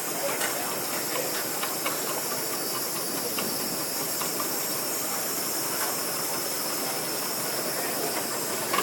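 Steam traction engine hissing steadily, with a few faint light ticks.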